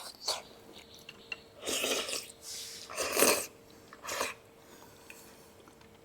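Close-miked eating sounds of noodles: a handful of short, noisy mouth bursts over the first four seconds, then quieter with only a faint steady hum underneath.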